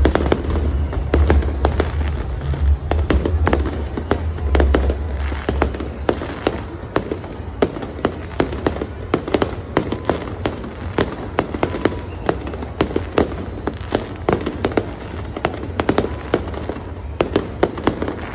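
Aerial fireworks bursting and crackling, a dense run of sharp bangs and pops. A deep rumble underlies the first six seconds or so, after which the cracks go on without it, more spaced out.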